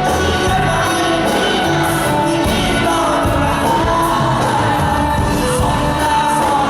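Live band music with a singer holding long, gliding sung notes over a steady beat.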